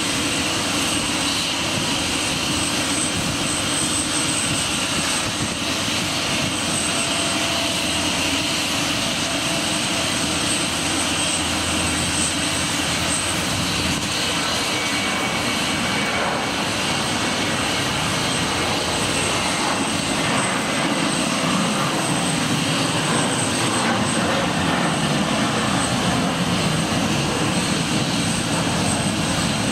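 Boeing 747-400's four Pratt & Whitney PW4056 turbofans running at low taxi power, a steady jet roar with a high whine over it, growing slightly louder about two-thirds of the way through.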